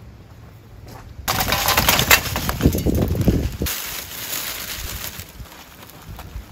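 Charcoal fire being lit in a steel fire box: a loud, dense crackling starts suddenly a little over a second in and lasts about two seconds. It then gives way to a softer hissing crackle as a sheet of paper burns over the charcoal.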